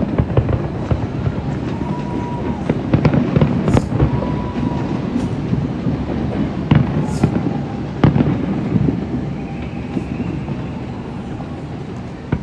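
Distant aerial fireworks going off: irregular sharp bangs and crackles, thickest a few seconds in and again past the middle, over a steady low rumble.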